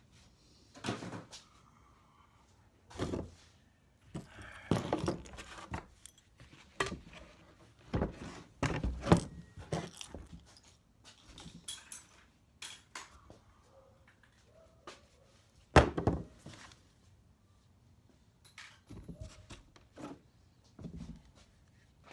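Scrap metal being handled and sorted: irregular thunks, clanks and rattles as pieces of metal and wire are picked up, moved and dropped, with the loudest knocks about nine and sixteen seconds in.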